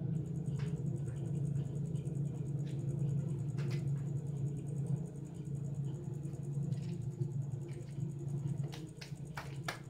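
A steady low hum that switches on abruptly and cuts off just as abruptly, with a few sharp clicks and knocks near the end.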